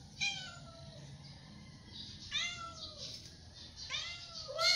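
Adult tabby cat meowing four times, each meow rising then falling in pitch. The last meow, near the end, is the loudest.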